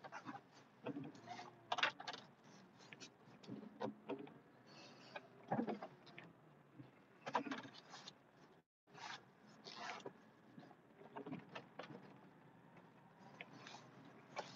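Irregular clicks, knocks and light rattles inside the cab of a moving snowplow truck, over a faint low running noise; the sound cuts out completely for a moment near the middle.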